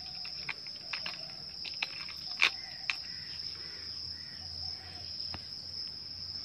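Iron chain and padlock being handled at a metal door: scattered metallic clicks and clinks, with one sharp click about two and a half seconds in. Crickets chirr steadily and high behind them.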